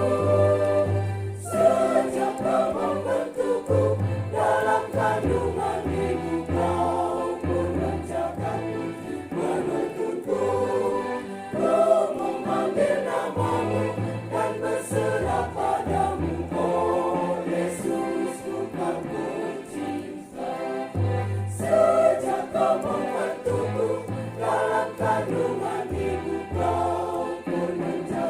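A church choir singing a hymn, over held low bass notes that change every second or two.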